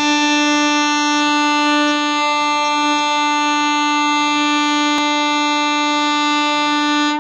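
Locomotive horn sounding one long, steady, loud note that cuts off suddenly near the end, with a brief click about five seconds in.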